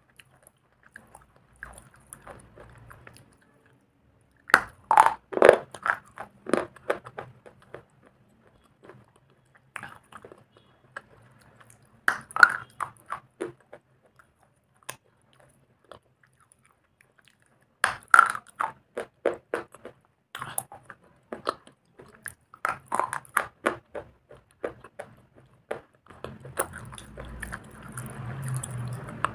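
Close-miked biting and chewing of black slate bars: crisp crunches in bouts of a few seconds separated by short pauses. Near the end the crunching gives way to a softer, steadier chewing sound.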